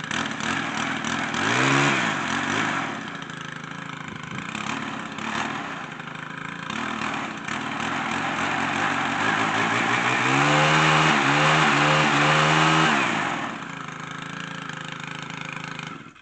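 Stihl FS 110 string trimmer engine running shortly after a cold start: idling with a brief rev about two seconds in and a longer rev near the middle, then cutting off at the very end.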